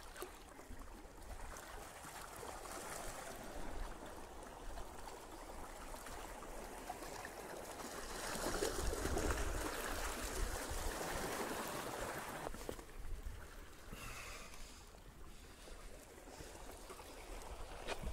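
Sea water washing and trickling among shore rocks and rock pools, swelling to its loudest about halfway through.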